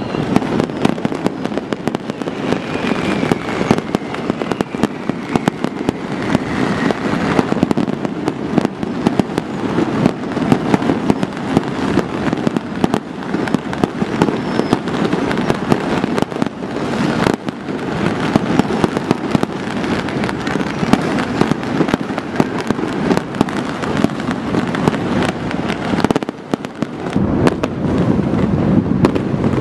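Many fireworks and firecrackers going off at once across a city: a dense, continuous barrage of pops, bangs and crackles. There is a short lull near the end.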